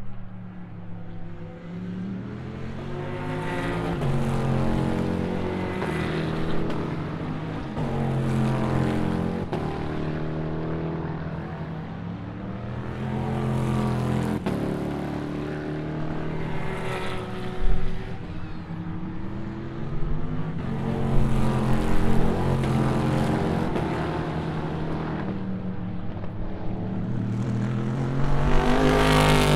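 Endurance race cars' engines passing one after another through a corner, each swelling as it comes by, its pitch falling and then rising again, with the loudest pass near the end. A single sharp pop cuts in about two-thirds of the way through.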